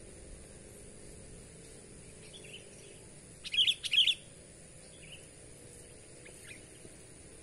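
Sooty-headed bulbul calling: a loud burst of two quick chirping phrases about three and a half seconds in, with a few fainter chirps before and after.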